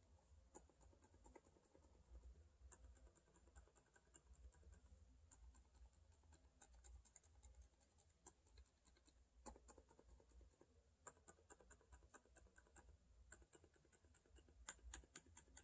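Faint typing on a mechanical keyboard fitted with Outemu silent Cream Yellow PRO tactile switches: soft keystrokes in quick runs, denser and louder near the end.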